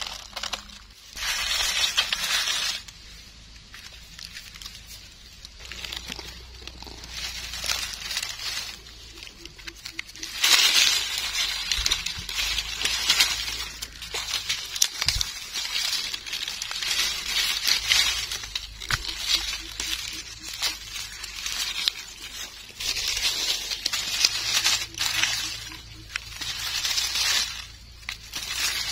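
Dry leaf litter and grass rustling and crackling in irregular bursts as gloved hands search through it and pick mushrooms.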